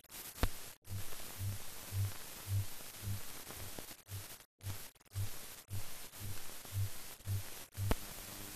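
Hiss from an old film soundtrack that drops out abruptly now and then. A soft low thump repeats about twice a second, with a sharp click near the start and another near the end.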